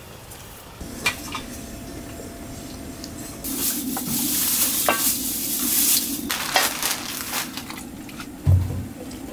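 Chicken frying in hot oil, sizzling loudest in the middle, while metal utensils are worked in the pot with a few sharp clinks. A dull thump comes near the end.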